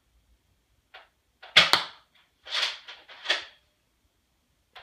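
A Nerf Zombie Strike Doominator spring blaster firing one dart: a sharp double crack about a second and a half in. It is followed by two shorter rasping strokes as the priming slide is worked back and forth.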